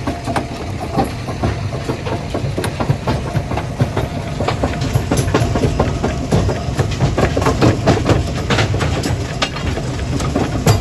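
Stone crushing plant running: a steady low machinery drone with constant irregular clattering and knocking of rock.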